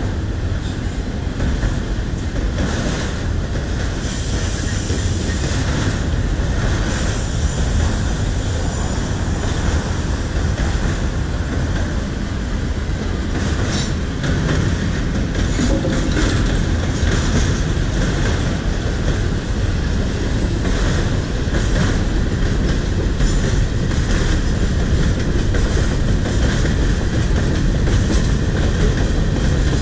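A freight train's cars rolling past: autoracks, covered hoppers and boxcars with a steady rumble, their steel wheels clicking over the rail joints.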